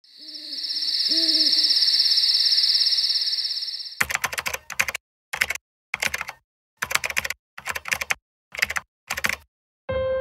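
A steady high-pitched chirring with an owl hooting twice, then typing on a computer keyboard in about eight short bursts.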